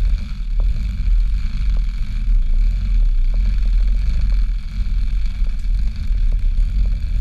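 Continuous low rumble of wind and handling noise on a body-worn GoPro as the wearer walks across a wooden suspension bridge, with a few faint taps and a steady high insect drone underneath.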